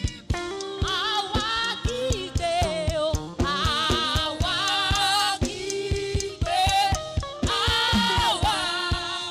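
Live gospel praise song sung by a group of women, with held, wavering vocal lines in harmony over a steady low note and a busy percussion beat.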